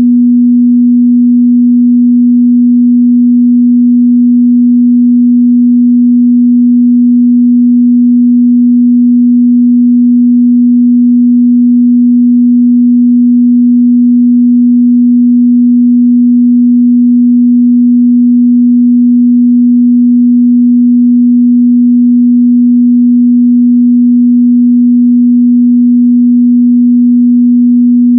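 Steady 243 Hz sine-wave test tone, a single pure low hum held at constant pitch and level.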